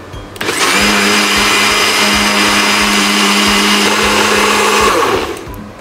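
NutriBullet personal blender running, blending a cream sauce. It starts suddenly about half a second in with a steady, loud whirr and hum that holds one pitch, then winds down near the end.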